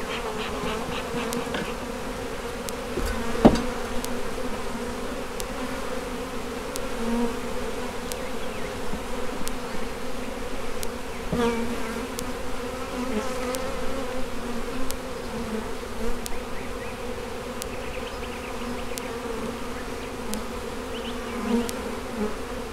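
Italian hybrid honey bees buzzing in a steady drone around an open hive. A single sharp knock stands out about three and a half seconds in.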